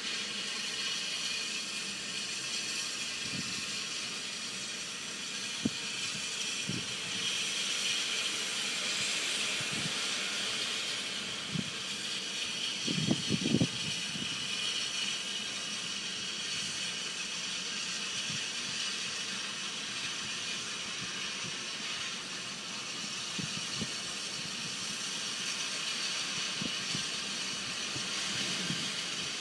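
Santa Fe #3751, a 4-8-4 steam locomotive, hissing steam steadily, with scattered clanks and a short run of louder knocks about halfway through.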